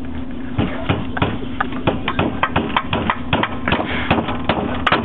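Hammer driving a nail into a wooden board with quick, light strikes, about three a second, starting about half a second in, over a steady background hum.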